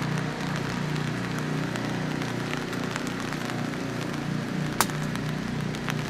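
Steady rain falling on wet surfaces, with scattered dripping ticks and one sharper tap near the end.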